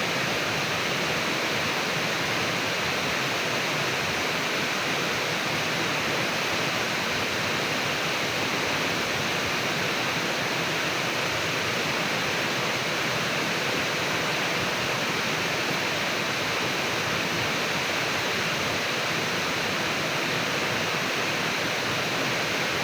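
Clear, shallow river water flowing and babbling over stones, a steady, unbroken rush.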